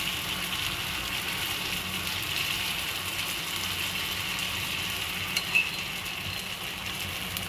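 Rawa (semolina) uttapam batter sizzling steadily in hot oil on a nonstick pan over a medium flame while a ladle spreads it, with one brief tap about five and a half seconds in.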